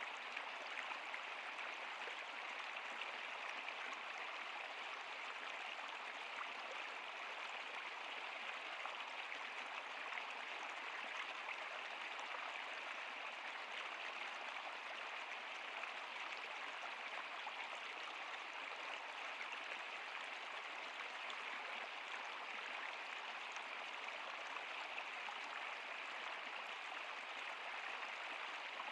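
Stream water flowing over rocks in a steady, even rush with a bright hiss and little low rumble.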